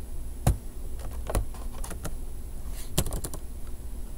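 Computer keyboard being typed on: a handful of separate keystrokes, with a quick run of several about three seconds in.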